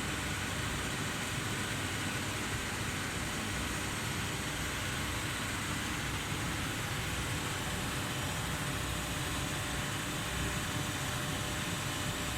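Steady hum and hiss of running machinery, level throughout with no distinct strokes or impacts.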